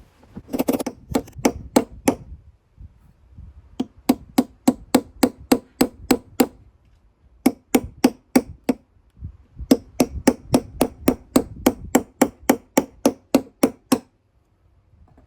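Hammer blows driving a new bearing seal into the tub of a Bosch Exxcel washing machine: quick, sharp knocks, about three or four a second, in several bursts with short pauses between.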